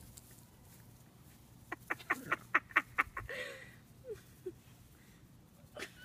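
A small pet animal lets out a quick run of about eight sharp, high squawks, then a few softer single calls.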